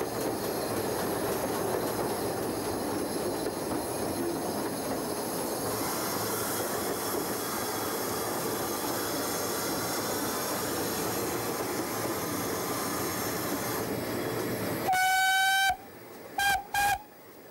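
Steam locomotive running, heard from the footplate: a steady rumble and clatter of the wheels and motion. Near the end the engine's whistle gives one blast and then two short toots, and the running noise drops away abruptly with the first blast.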